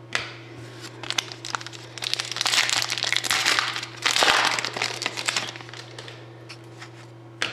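Hockey trading cards handled by hand, rustling as they are slid and shuffled. There are two longer stretches of rustling, about two and four seconds in, and scattered light clicks.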